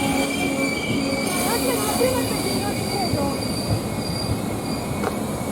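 A passing train with its wheels squealing on the rails: steady high-pitched squeal tones over the rolling noise, the highest squeal fading out near the end.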